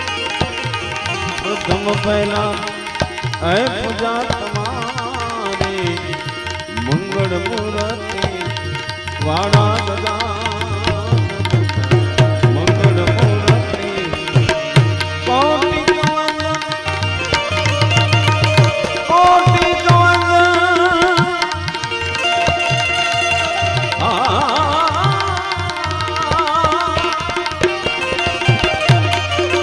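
Live Indian devotional music: tabla drumming and harmonium, with small hand cymbals (manjira) clinking in rhythm and a male voice singing wavering, ornamented phrases.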